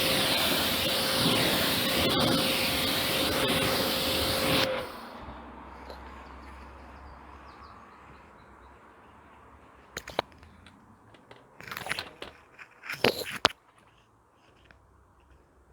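Kärcher K7 pressure washer spraying with a steady whine, cutting off suddenly about five seconds in. A few sharp clicks and knocks follow near the end.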